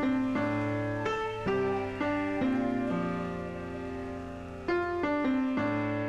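Background piano music: a slow, gentle melody of notes struck one after another.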